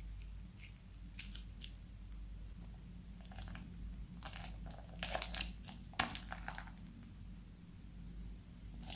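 Thin plastic bag of slime crinkling in the hand in short irregular bursts as it is squeezed and emptied, with a sharp click about six seconds in.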